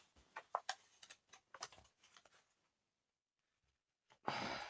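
Faint handling of paper seed packets and packaging: a few light taps and clicks, a quiet pause, then a short rustle near the end.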